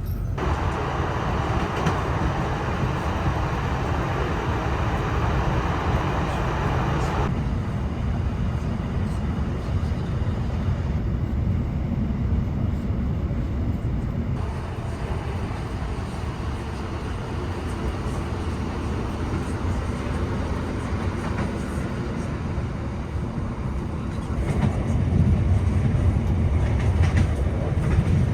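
Steady rumble of a ScotRail diesel train heard from inside the carriage. The higher part of the noise drops away suddenly about seven seconds in, and the low rumble grows a little louder near the end.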